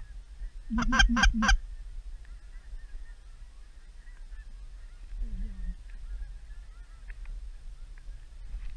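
Four quick, loud goose honks about a second in, followed by faint, distant goose honking for the rest, with a low wind rumble on the microphone.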